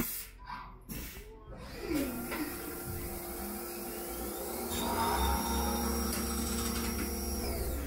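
Haas CL-1 CNC lathe running a cycle on brass bar stock: the spindle spins up with a rising whine, runs steadily while coolant sprays with a hiss and the tool turns the bar, then winds down near the end. A brief clunk comes about two seconds in as the tooling moves into place.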